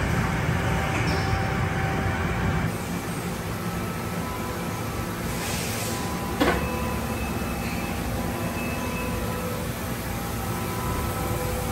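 Doosan NHP 5000 horizontal machining center running: a hissing wash of coolant and cutting noise for the first two and a half seconds, then a steadier machine hum with faint whining tones. A single sharp clunk comes about six seconds in, with a short ring after it.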